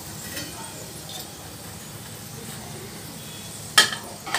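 Golden-brown onions being scooped out of hot deep-frying oil with a perforated steel skimmer, the oil sizzling steadily. Near the end a sharp metallic clink, followed by a smaller one.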